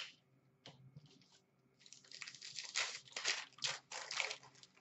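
Hockey card pack wrapper being torn open and crinkled by hand: a dense, crackly rustle in uneven surges from about two seconds in, after a sharp click at the very start.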